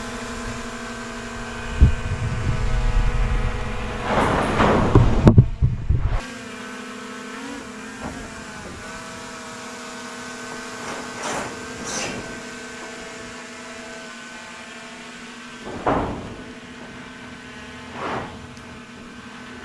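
A steady mechanical hum with a pitched whine, which shifts pitch briefly about seven seconds in. Heavy rumbling and clattering from about two to six seconds cut off suddenly, and a few single knocks follow later.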